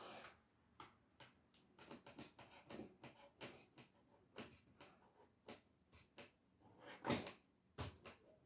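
Faint, irregular clicks and scrapes of a knife working at plastic cable trunking, with two louder knocks about seven and eight seconds in.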